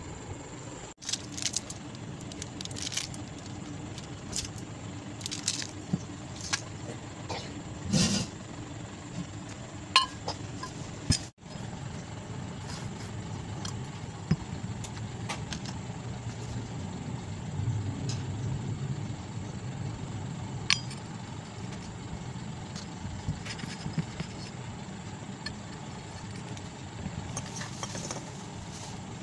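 Metal fan-motor parts being handled: scattered clinks and knocks as bearings and the aluminium rotor housing are picked up and set down, over a steady low rumble in the background.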